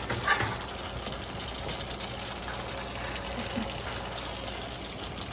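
Spiced sauce simmering in a frying pan around a whole leg of lamb, with a steady bubbling hiss.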